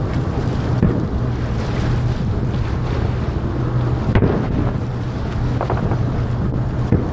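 Distant aerial fireworks shells bursting: a few dull booms, the loudest about four seconds in, with a quick run of smaller pops a little later, over a steady low rumble.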